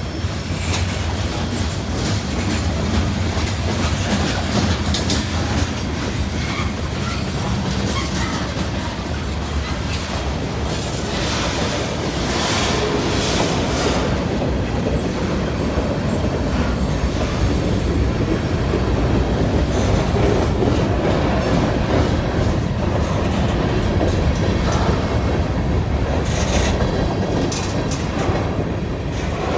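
Freight train cars rolling steadily past under a continuous heavy rumble, their wheels clacking over the rail joints. A few brief sharper, higher sounds come around the middle and near the end.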